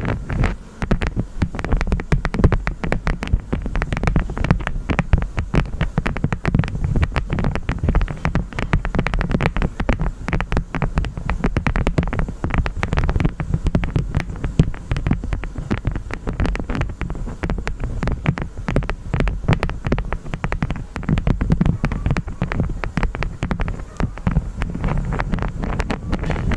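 Honeycomb wax crunching and crackling close to the microphone in a dense, steady run of fine crackles, over a low rumble of wind on the microphone.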